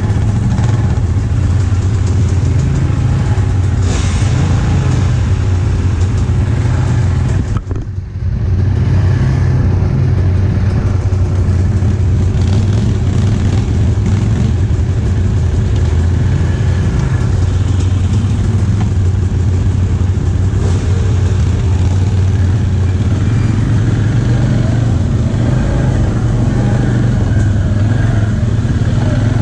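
ATV engine running and revving loudly without a break, with a brief drop in level about eight seconds in.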